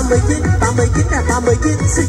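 Loud electronic backing music with a heavy bass line and a gliding melody.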